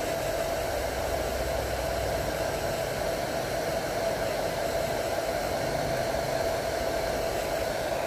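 Electric hair dryer running, a steady rush of air with a steady mid-pitched whine, blowing to dry a wet bird's feathers.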